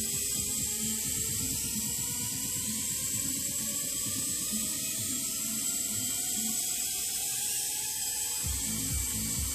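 Small electric motors of a Silverlit Sky Huma coaxial RC helicopter whining in flight, with a steady high whine and a tone that rises slowly in pitch. Music plays in the background with a steady low beat.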